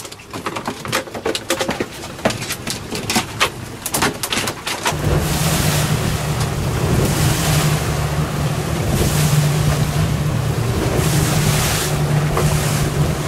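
A boat's motor comes on about five seconds in and runs steadily, with wind and water rushing past. Before that there are scattered sharp clicks and knocks.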